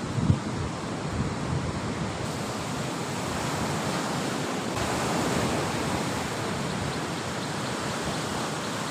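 Sea surf washing in on a beach: a steady rushing hiss that swells a little midway, with wind on the microphone and a brief low bump near the start.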